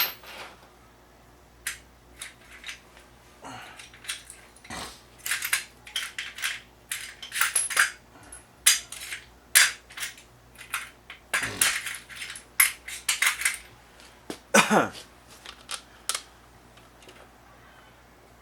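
Metal hand tools and steel axle parts clinking and clanking irregularly as a truck's front axle shaft is reassembled.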